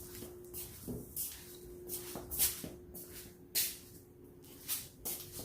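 A string of short, hissy scuffs, roughly one every half second and uneven, over a faint steady hum.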